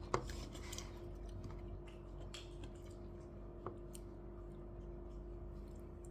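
Light clicks and taps of eating at a table, with a sharp click about a quarter second in and another a little past the middle, over a steady low hum.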